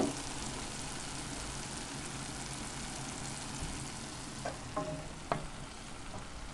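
Onion-and-carrot sauté with sour cream and tomato paste sizzling steadily in a frying pan, the gas under it just turned off. A few light knocks come between about four and a half and five and a half seconds in.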